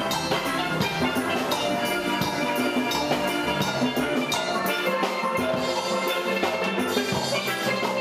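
Steel band music: steel pans playing bright melodic notes over a steady percussion beat.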